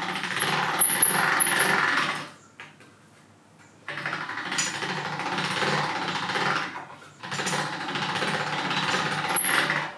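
Hand-cranked pasta machine rattling as its rollers are turned, in three runs of cranking with short pauses between. The dough sheet is being passed through the rollers at the widest setting.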